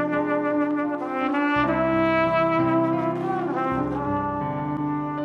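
Trumpet playing a slow melody of long held notes over piano accompaniment, with no singing.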